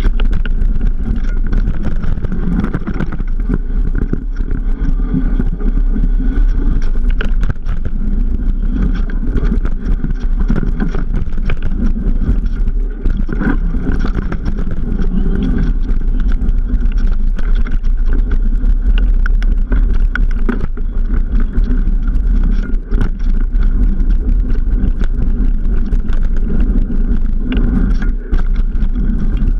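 Wind rushing over the camera microphone with the rattle and crunch of a mountain bike riding down a rough, wet gravel trail, with frequent short knocks from the bumps.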